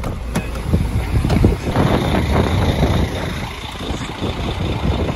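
A car's inner door handle and latch clicking open, then wind buffeting the microphone in uneven gusts.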